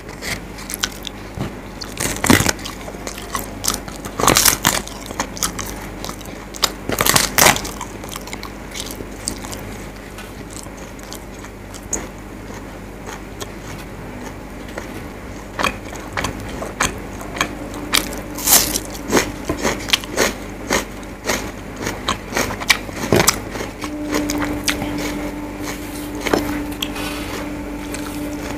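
Crisp papad (fried lentil wafer) being snapped and crunched while eaten, a few loud sharp cracks a couple of seconds apart, then a run of smaller crunches and chewing.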